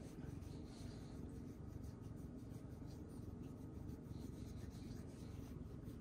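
Quiet, soft rubbing of fur as a hand scratches a ginger cat's head and ears, over a steady low rumble.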